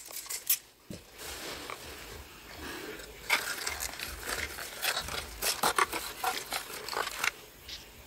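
A short spray from a trigger spray bottle about half a second in, then the irregular crinkling and rustling of a small cardboard seed packet being handled and opened by hand, dense from about three seconds in to just past seven.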